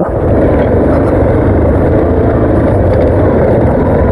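Yamaha motorcycle running steadily while being ridden over a rough trail, its engine mixed with heavy wind and road noise on the microphone.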